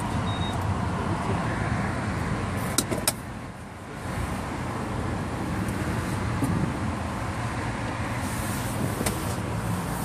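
Steady low hum and hiss of a car's cabin, with two sharp clicks close together about three seconds in, followed by a brief quieter stretch.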